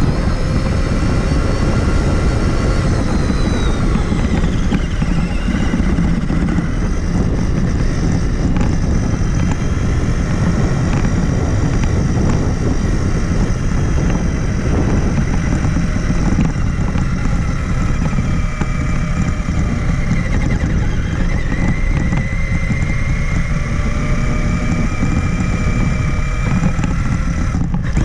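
Traxxas Summit RC truck's electric motor and drivetrain whining, the pitch rising and falling with the throttle, over a heavy low rumble, heard from a camera mounted on the truck itself. The whine and rumble drop briefly near the end.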